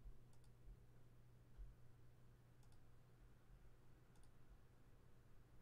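Near silence: a low steady hum of room tone, with faint sharp double clicks about three times.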